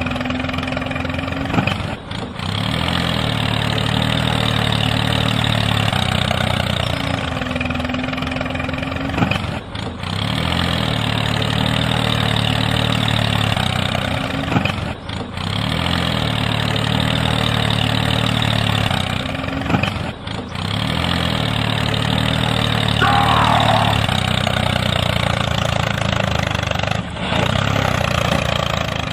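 Tractor diesel engine running and idling steadily. It is broken by short gaps every five to seven seconds, and after each one it picks up again with a brief rise in pitch.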